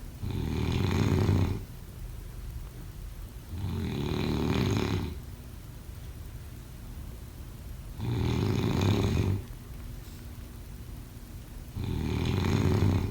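Sleeper snoring in a slow, regular rhythm: four loud snores, each about a second and a half long, coming roughly every four seconds.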